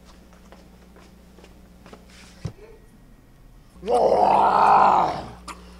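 A person roaring like a beast, one loud voiced roar of about a second and a half starting near the end, after a soft thump about two and a half seconds in.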